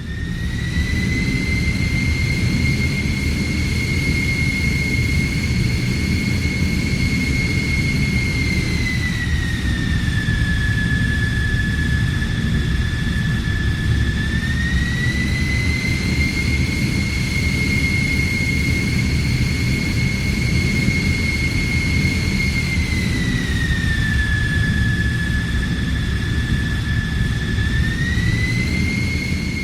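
Jet aircraft engine running with a steady low rumble under a high turbine whine. The whine's pitch dips slightly and returns twice.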